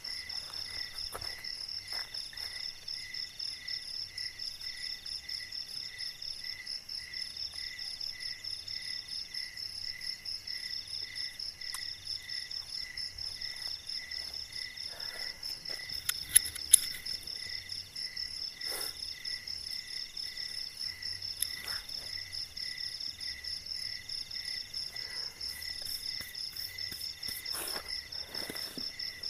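Night-time chorus of forest insects, crickets among them, with several overlapping high-pitched trills: one steady, one pulsing about two or three times a second, one coming and going in short phrases. Two sharp clicks about halfway through are the loudest sounds.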